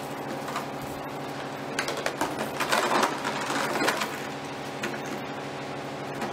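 A steady droning hum, with a stretch of clinking and rustling about two to four seconds in from a thin metal chain and red plastic cords being handled.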